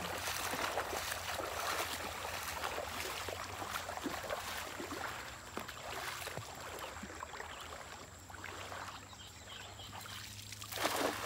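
Shallow river water sloshing and trickling around wading legs. A sudden louder splash near the end as a thrown cast net lands on the water.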